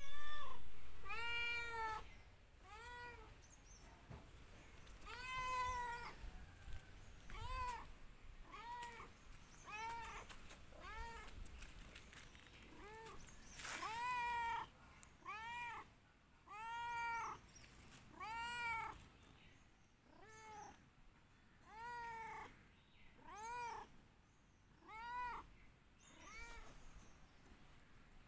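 A cat meowing over and over, roughly once a second, each meow rising and then falling in pitch.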